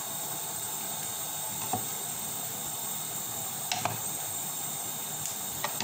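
Steady background hiss with a few light clicks and taps from hands handling green chillies on a plate.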